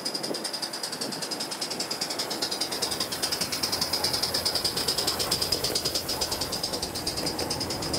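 A coal-fired Gauge 1 live-steam model locomotive running past close by with its train. It makes a fast, even beat with a steady high tone over it, growing a little louder about three to five seconds in as it draws level.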